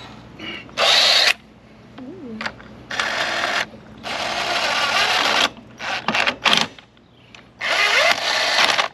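Cordless impact wrench hammering lug nuts onto a boat trailer wheel hub in several bursts of about half a second to a second and a half, with short pauses between, as the wheel is bolted back onto a newly installed axle.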